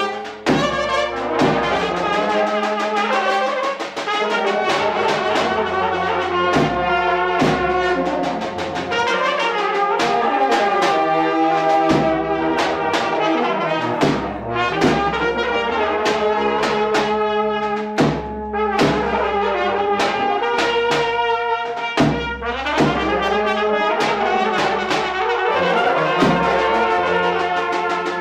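Brass band music: horns playing a melody over a steady, regular drum beat.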